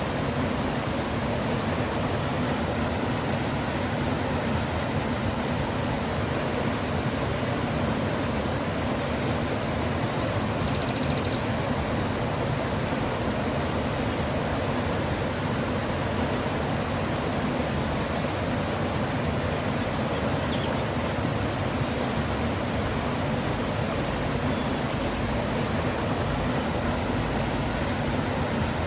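Mountain river flowing with a steady rushing of water. A small insect chirps high and evenly, about twice a second, over the water.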